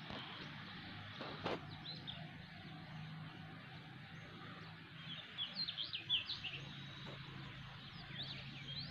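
Faint open-air ambience with small birds chirping in quick clusters, once about five seconds in and again near the end, over a faint steady low hum.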